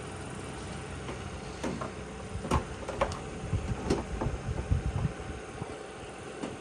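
Plastic door trim panel being pushed back onto the truck door: a few sharp clicks and a run of dull knocks as it is handled and pressed into place.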